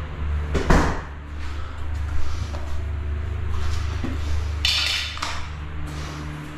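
Hand scraper and tools handled on a tiled shower floor: a sharp knock just under a second in, and a short scrape at about five seconds. A steady low hum runs underneath.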